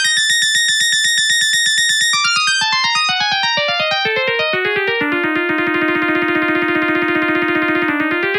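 Samsung SGH-T200 polyphonic ringtone played on an MCP-MA7: a fast electronic melody of short synth notes over a rapid, even pulsing accompaniment, with a held chord through the second half.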